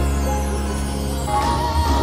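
Music with steady held notes; a wavering melody line comes in about halfway through.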